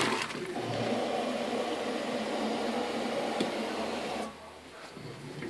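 Top-loading washing machine agitating a load of jeans in soapy water: the motor drives the wash plate with water churning steadily, then stops sharply about four seconds in, a pause between agitation strokes.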